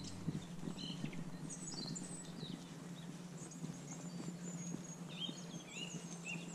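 Small birds chirping repeatedly in short, quick calls, over faint footsteps on a paved path and a steady low hum.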